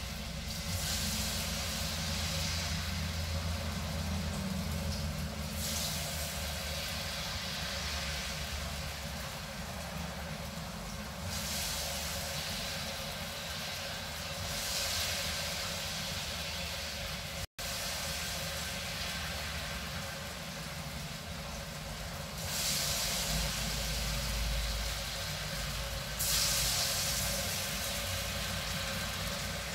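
Batter-coated potato slices deep-frying in hot cooking oil: a steady hissing sizzle that swells louder several times.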